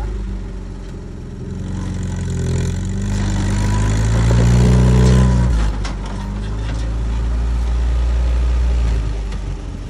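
Flat-fender Jeep's engine working under load as it crawls over boulders: the revs climb steadily for a few seconds, drop suddenly about halfway through, hold steady, then ease off near the end. A few sharp clicks and scrapes of tyres and underbody on rock come around the middle.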